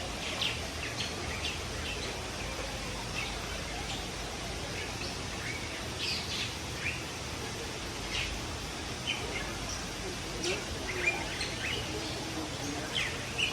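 Caged birds chirping: many short, high chirps scattered irregularly over a steady low background hum.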